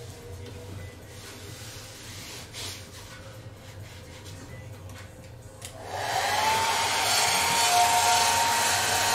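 Faint rubbing and handling noise, then about six seconds in a handheld hair dryer switches on. Its motor whine rises quickly and settles into a loud, steady blowing as it heats the vinyl covering film.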